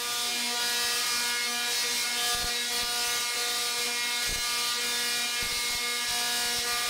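Giant Tesla coil firing: its arcs make a steady, rasping electric buzz over a crackling hiss, with a couple of sharper snaps partway through.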